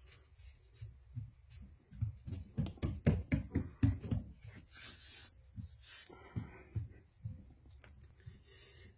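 Hands patting and rubbing a glued Hydro-Turf foam traction pad down onto a jet ski deck: a quick run of soft thumps, then a few brushing rubs and scattered lighter taps.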